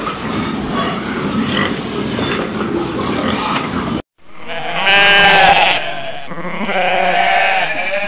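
A herd of pigs grunting in a dense noisy mix for about four seconds, which cuts off abruptly. Then goats bleating: two long bleats, the first the louder.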